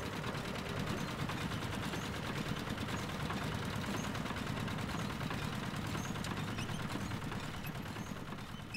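Engine of a water pump running steadily, with a rapid, even knocking beat.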